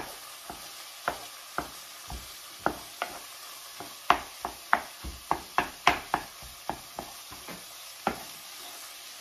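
Wooden spatula tapping and scraping against a skillet while breaking up thin-sliced steak and onions, about twenty uneven knocks that come faster and louder in the middle, over a faint sizzle of frying meat.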